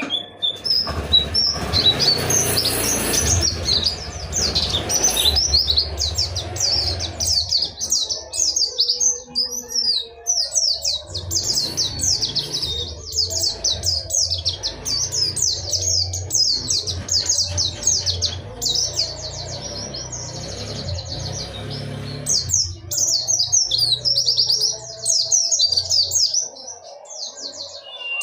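Pleci (white-eye) singing a long, unbroken run of rapid high chirping notes: the continuous rolling 'ngerol' song with sharp 'nembak' notes that keepers prize in a bird in full song. A low background rumble sits under the song and fades out near the end.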